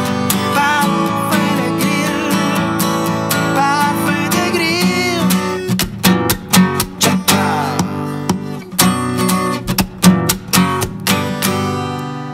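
Steel-string acoustic guitar played solo: ringing strummed chords at first, then sharp, choppy strums from about six seconds in.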